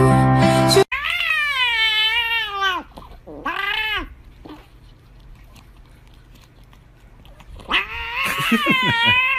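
Grey-and-white cat meowing: a long, wavering meow, a shorter one right after it, then a pause and another long meow near the end. Background music cuts off about a second in.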